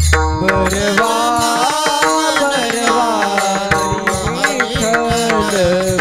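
Marathi devotional kirtan music: a gliding sung melody carried over steady drumming and rapid, regular strokes of hand percussion.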